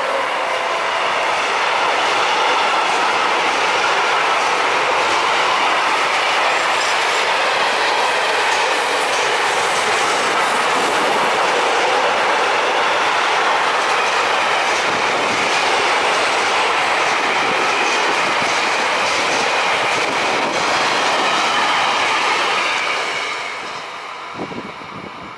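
Intermodal freight train of truck trailers on pocket wagons rolling past at speed: a steady loud rush of wheels on rail with a rattle of wheels over rail joints and faint wavering wheel squeal. It fades about 23 seconds in as the last wagons draw away.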